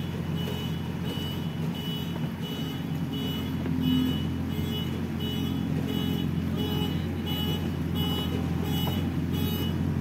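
JCB backhoe loader's diesel engine running steadily under work, with its reversing alarm beeping about twice a second. The engine swells briefly about four seconds in.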